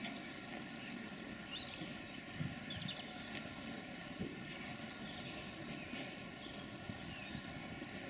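Steady drone of Irish Rail diesel multiple units' engines as a railcar approaches slowly, with a few faint bird chirps.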